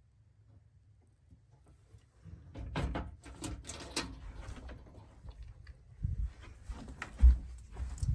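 Scattered knocks and clicks with low thumps, starting a couple of seconds in after near quiet; the strongest thump comes near the end.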